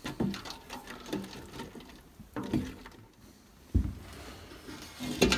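Wooden stirring stick clicking and scraping against a stainless steel stockpot. A dull thump comes about two-thirds of the way through and a sharp knock near the end.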